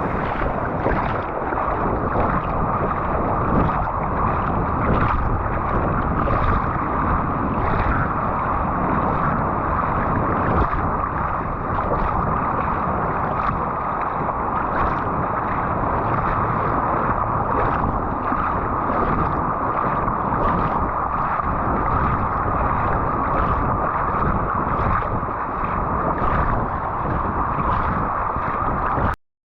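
Steady rush of wind and surf on a beach, with footsteps in sand about every 0.7 s. It cuts off suddenly near the end.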